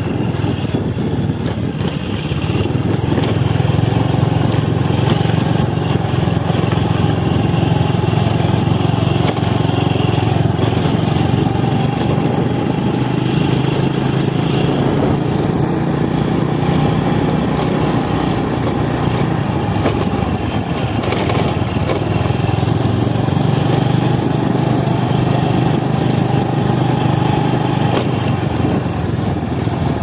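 Motorcycle engine running steadily while riding, getting a little louder a few seconds in.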